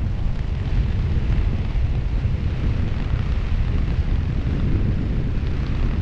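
Wind buffeting the GoPro Max's microphones as the skydiver flies under an open parachute canopy: a steady low rush of air with no breaks.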